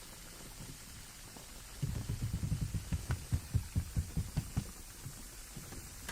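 ASMR fingertip tapping on a microphone, imitating rain: a quick flurry of soft, low thumps starting about two seconds in, slowing and stopping about three seconds later.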